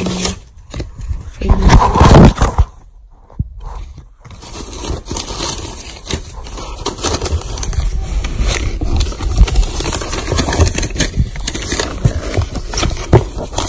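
Scraping and rustling handling noise with many small clicks, loud and rumbling for the first couple of seconds, then a brief drop to near quiet, then steady rustling and clicking.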